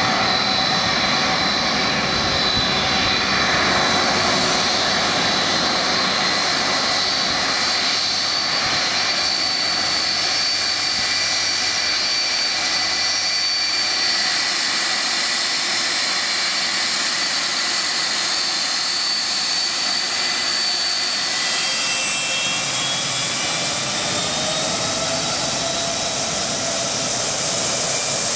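A Boeing 757-200 airliner's two jet engines at high takeoff power: a steady, loud rush of jet blast with high, steady whines over it. In the last few seconds new whines rise in pitch as the aircraft rolls past on its takeoff run.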